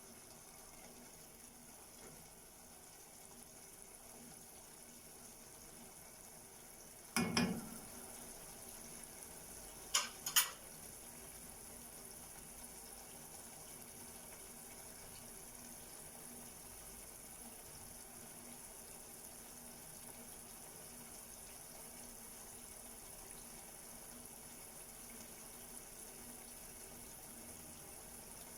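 Pot of herbs in water and olive oil simmering over a low flame, a faint steady bubbling as the water boils off to leave only the oil. A knock about seven seconds in and two sharp clicks a few seconds later.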